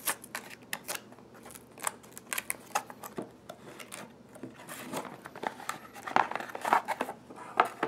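Retail packaging for an HDMI cable being handled and opened by hand: irregular clicks, crinkles and rustles of cardboard and plastic.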